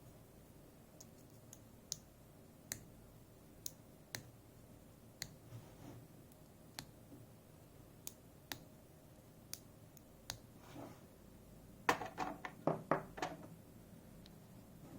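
Small metal lock parts and tools clicking as they are handled and set down, about one sharp click a second, then a quick run of louder clicks and rattles near the end.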